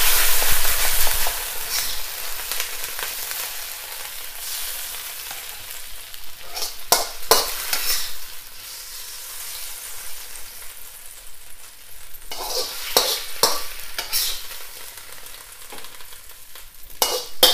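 Bok choy sizzling in a hot steel wok, loudest at first and dying down after the heat has been turned off. A metal spatula scrapes and clinks against the wok several times as the greens are lifted out.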